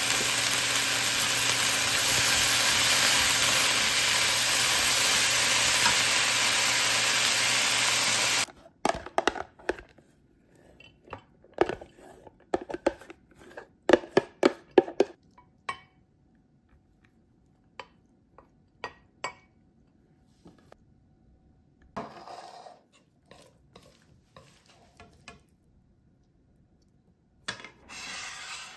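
Sliced onions sizzling steadily in a hot wok with perilla oil and oyster sauce; the sizzle cuts off suddenly about eight seconds in. Then a run of sharp clinks and clatter as cooked brown rice is tipped from a container onto a porcelain dish, followed by a few brief scrapes.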